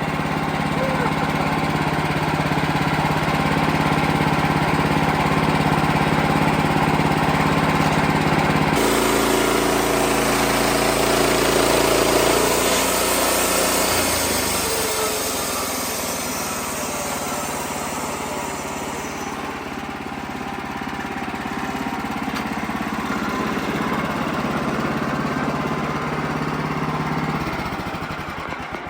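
Wood-Mizer LX55 portable band sawmill running steadily while it mills a hickory log. The sound changes abruptly about nine seconds in and again near fourteen seconds, and fades at the end.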